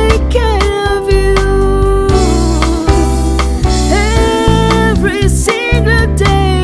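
Live band playing a soul-pop song: a gliding lead melody over bass and drums.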